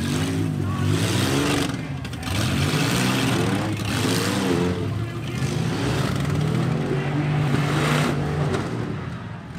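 Several demolition derby vehicles' engines revving in the arena, their pitch rising and falling again and again, with a few brief lulls.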